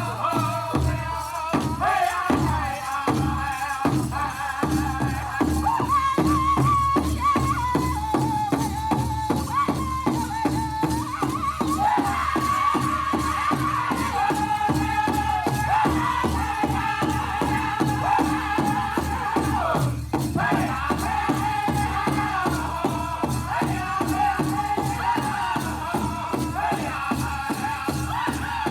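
Powwow drum group singing a contest song: several male voices in high-pitched unison over a steady, evenly spaced drumbeat on one big drum.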